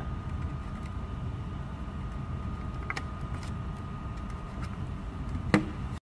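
A steady low background rumble with a faint steady whine, broken by light clicks as a plastic detector and its programmer cable are handled: a faint one about halfway through and a sharp one near the end.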